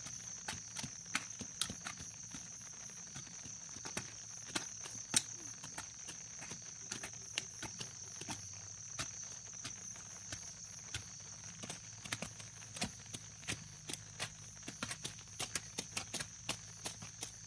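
Hand hoe blades chopping into soil: an irregular run of short, sharp strikes, two or three a second, under a steady high-pitched drone of insects.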